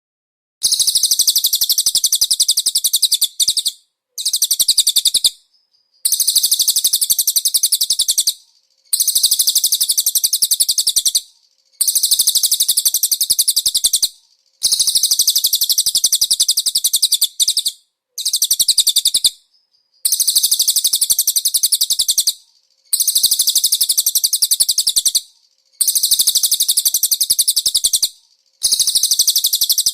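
Cililin bird singing a very high-pitched rapid trill, repeated in bursts of two to three seconds with short pauses between them.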